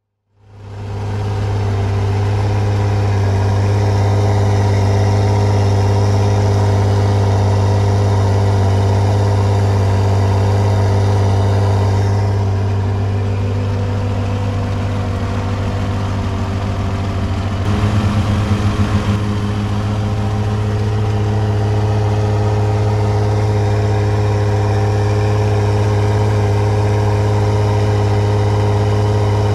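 Supercharged Mazda MX-6 engine running steadily at a constant speed, heard close up at its front-mount cold air intake: a loud, even drone with a brief wavering about two-thirds of the way through.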